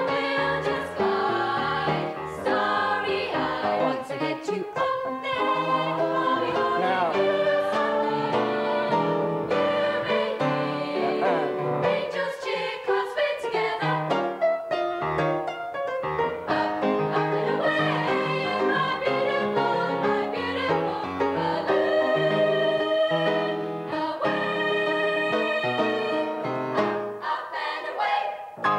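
A small group of young women singing together in sustained, held notes, accompanied on a grand piano.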